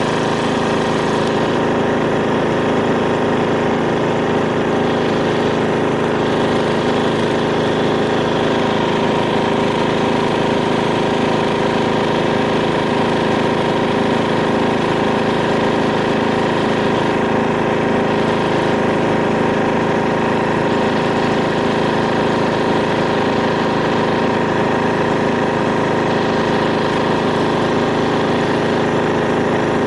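Riding lawn mower engine running at a steady speed, with no revving.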